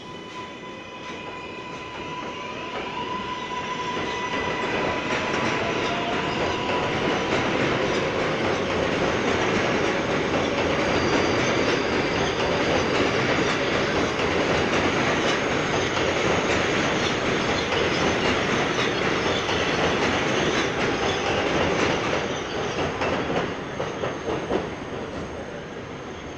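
New York City Subway R188 train on an elevated steel track. Its electric motors whine at first, then its wheels make a long, loud rumble and clatter with a high wheel squeal. The noise builds over the first several seconds and dies down about four seconds before the end.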